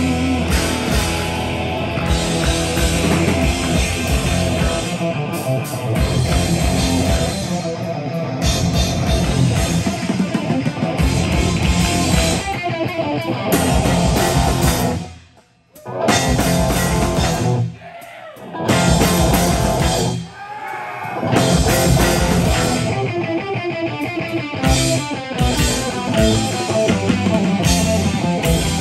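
Live metal band playing loud: electric guitars, bass guitar and a drum kit through a club PA. About halfway through, the band stops dead for a moment, then plays a few short stabs with gaps before driving on again.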